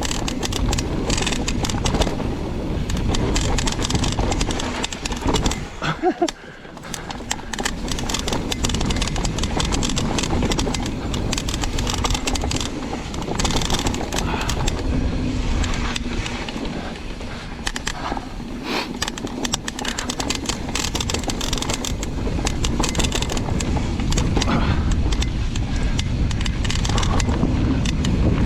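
Trek Remedy mountain bike descending a downhill trail: wind buffeting the microphone under a steady rumble of tyres on dirt, with rapid clattering of the bike over small drops and trail chatter. The noise dips briefly about six seconds in.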